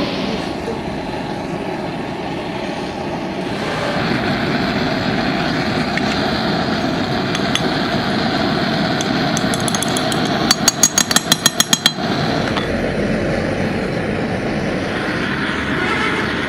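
Steady mechanical drone of workshop noise that gets a little louder about three and a half seconds in, with a quick run of about eight sharp metallic taps, roughly six a second, about two thirds of the way through.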